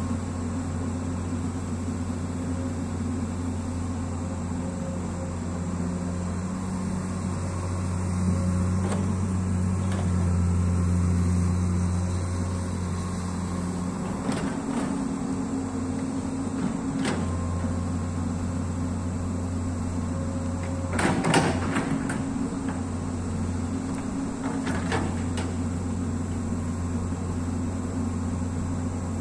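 Komatsu long-arm amphibious excavator's diesel engine running steadily as it digs, its load swelling for a few seconds about a third of the way in. A few sharp knocks from the digging gear, the loudest about two thirds of the way in.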